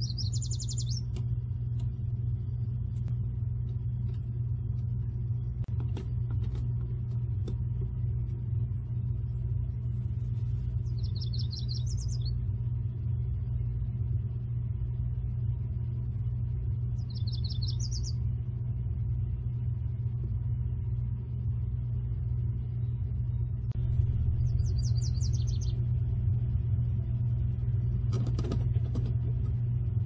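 A songbird sings four brief, high, fast trills, spread out and about a second long each, over a steady low rumble that is the loudest sound throughout.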